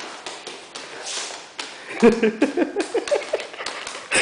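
Light clicks and taps of a dog's shoes on a wooden floor. About halfway through comes a run of short pitched vocal sounds.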